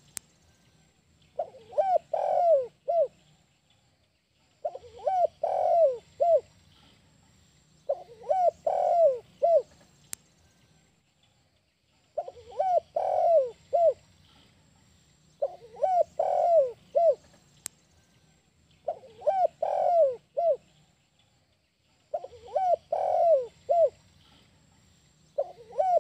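Spotted dove (tekukur/derkuku) cooing its 'kuk 1' song: a short phrase of several throaty coo notes, repeated about every three seconds, eight times over.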